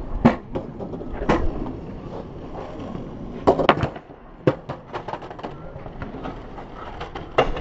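Skateboard on concrete: wheels rolling, broken by sharp clacks of the board hitting the ground. About three and a half seconds in comes the loudest cluster of clacks as the trick is bailed and the board lands upside down and clatters away.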